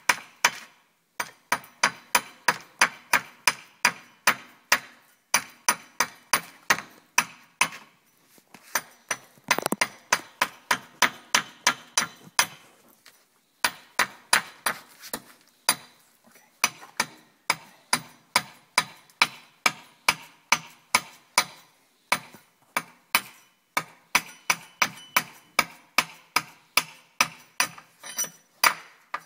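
A hatchet chopping down the side of a wooden bow stave to rough it out: quick repeated blows, about two or three a second, in runs broken by short pauses.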